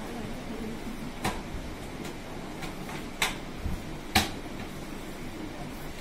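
Three sharp plastic clicks and knocks as the front-loading washing machine's covers and panel are handled, the last the loudest, over a steady low hum.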